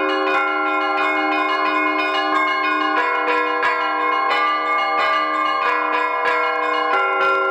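Church bells ringing in a continuous peal: several bells struck in quick succession, about three strikes a second, their tones overlapping and ringing on between strikes.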